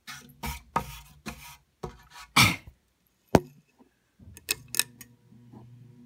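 Close handling noise, with rubbing and knocking against the phone and fan, ending in one sharp click. About four seconds in, the 1992 Hunter Original ceiling fan's motor starts a steady low hum.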